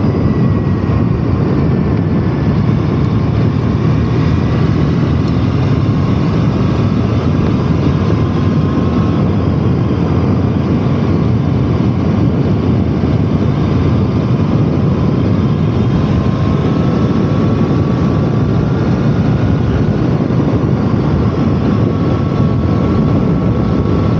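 2012 Triumph Bonneville T100's 865 cc air-cooled parallel-twin engine running steadily while the motorcycle is ridden along at road speed.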